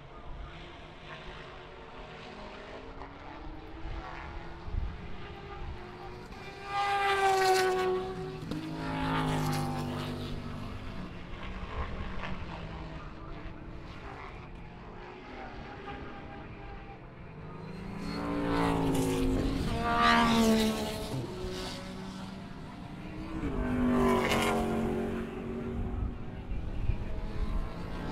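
Grand-Am race cars passing at racing speed, about five of them one after another. Each engine note swells as the car nears and drops in pitch as it goes by. The loudest passes come about seven seconds in, around twenty seconds, and again right at the end, with fainter engine sound from cars elsewhere on the track in between.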